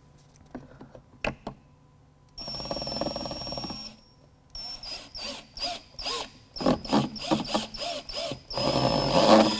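Handheld power drill boring through the thin plastic of a car console top panel. After a few clicks, the motor whines steadily for about a second and a half. After a short pause it runs in a string of short on-off bursts as the bit cuts into the plastic, loudest near the end.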